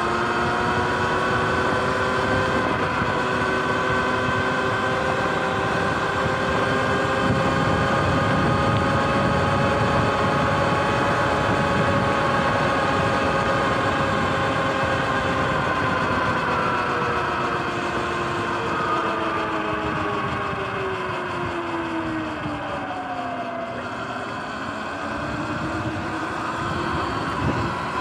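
Sur-Ron Light Bee X electric dirt bike's motor whining as it rides, over wind and tyre noise. The pitch holds fairly steady, falls as the bike slows about two thirds of the way through, and climbs again near the end.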